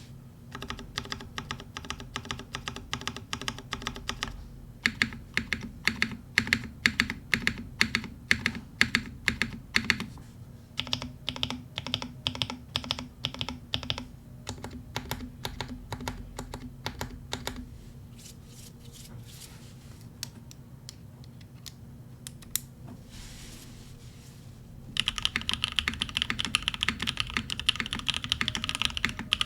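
Typing on an MC65 top-mount custom mechanical keyboard with custom-lubed Cream Soda switches, a carbon fiber plate and GMK keycaps. The keys are struck in quick runs with short pauses between them. Keystrokes are slower and sparser through the middle, and a burst of fast, louder typing starts a few seconds before the end.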